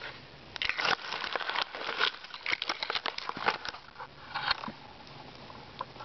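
Close rustling and crackling of dry leaves and twigs on the forest floor as someone moves right beside the microphone, dying down near the end.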